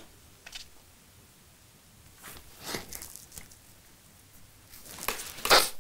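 A man crying quietly: sniffles and shaky breaths, a few short bursts with pauses between, the strongest near the end.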